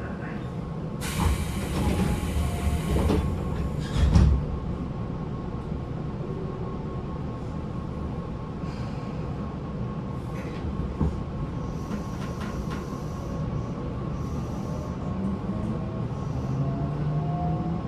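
Inside a Tobu 9050 series electric train car: a burst of air hiss about a second in, then a heavy thump about four seconds in, over the steady hum of the car. Near the end, the Toyo GTO-VVVF inverter motors begin a rising whine as the train starts to accelerate.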